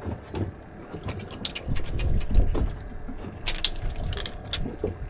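Scattered clicks and rattles of fishing gear being handled, over a low steady rumble, with a cluster of sharper clicks about three and a half seconds in.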